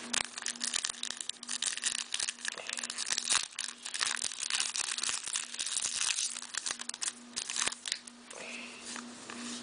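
Trading-card pack wrapper being torn open and crinkled by hand: a dense run of irregular crackling and rustling that eases off near the end as the cards are pulled out. A faint steady hum lies underneath.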